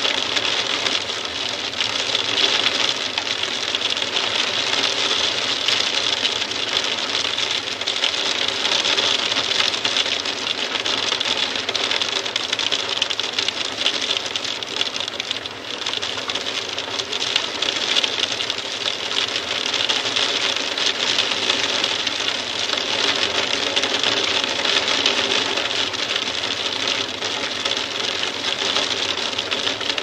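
Hail hitting a window pane: a dense, steady clatter of stones ticking on the glass, dipping briefly about halfway.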